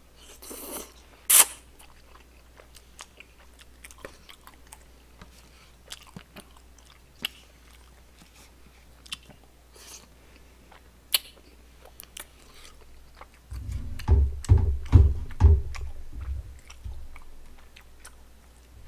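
Close-miked chewing and biting of soft, chewy rice cakes, with scattered small wet clicks and a sharp sound about a second in. A run of louder low thumps comes about two-thirds of the way through.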